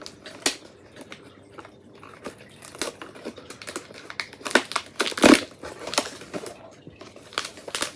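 Cardboard and packaging crinkling and crackling in irregular snaps as a coffee advent calendar door is pushed open and the coffee item inside pulled out, with one louder crunch about five seconds in.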